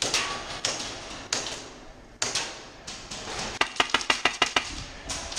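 Airsoft gun firing a rapid burst of about nine shots in a second, a little past the middle, after four single sharp cracks, each with a short echo.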